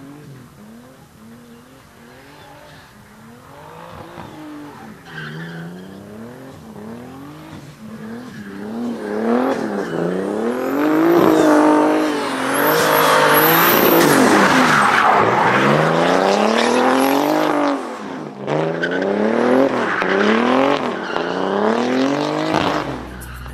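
Turbocharged BMW E36 drift car's engine revving, its pitch rising and falling again and again with the throttle, over the squeal of sliding tyres. It grows much louder as the car drifts close by and eases off somewhat afterward.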